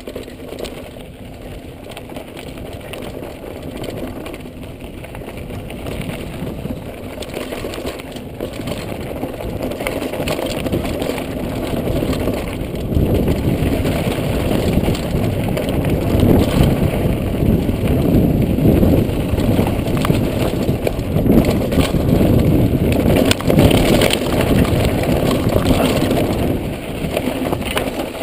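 Wind rushing over the camera microphone and tyres crunching and rattling over rocky dirt as a Trek Remedy mountain bike descends a trail, with frequent small knocks from the bike. It grows steadily louder as speed builds, loudest in the second half.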